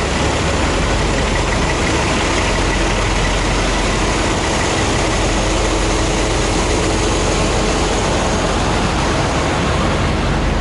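Steady, loud rumble of idling diesel semi-truck engines in a packed truck stop lot, an unbroken wash of engine noise with a faint steady whine on top.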